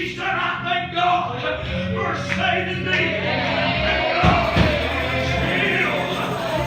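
Gospel music: a group of voices singing over steady instrumental backing.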